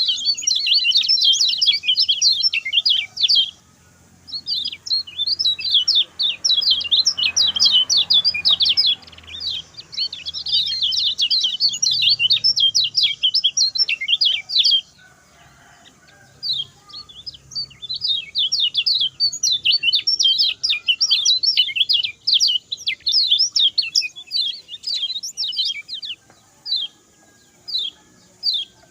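Lemon-bellied white-eye (kecial kuning) singing a fast, high twittering song. It sings in runs of a few seconds each with short breaks between, and near the end the song thins out to scattered single notes.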